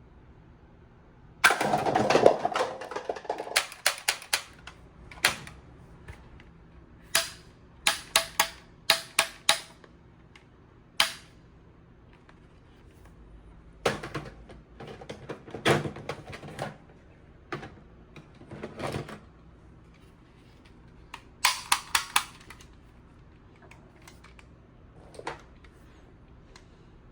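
Plastic toy gun being handled: a longer rattle about a second and a half in, then sharp clicks and snaps in irregular clusters.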